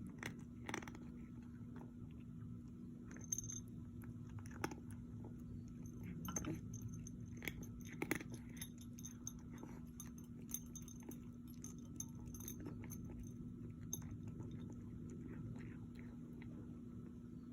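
An animal chewing: scattered crunches and clicks at irregular intervals over a steady low hum.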